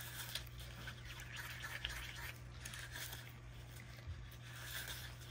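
A wooden craft stick stirring and scraping glitter-filled resin in a mixing cup: faint, irregular scraping and swishing.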